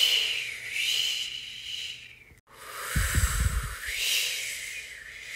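Breathy whooshing hiss blown by a person, swelling and fading twice. Near the start of the second whoosh there is a short low rumble of air striking the microphone.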